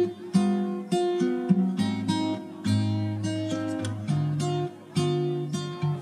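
Background music of acoustic guitar, strummed and plucked chords changing every second or so.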